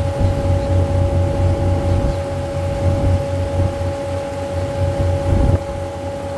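River cruise boat's engine running with a low, pulsing throb under a steady hum; the throb drops away suddenly about five and a half seconds in, leaving the hum.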